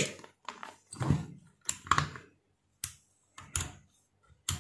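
A string of short, sharp clicks and knocks, about eight in under five seconds, from a digital multimeter's dial and buttons being worked and its test probes being handled as the meter is set up for a continuity check.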